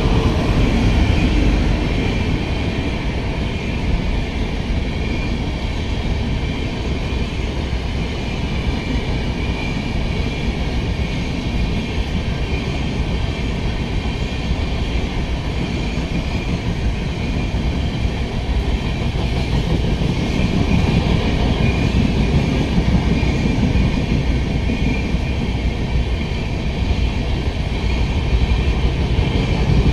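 Air-conditioned coaches of a Rajdhani Express passenger train rolling past close by: a continuous loud rumble and clatter of wheels on the rails, growing a little louder in the second half.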